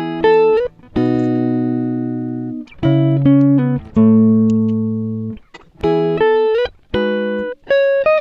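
Instrumental guitar music: a slow phrase of plucked notes and chords, each ringing out and fading, with short slides between some of them.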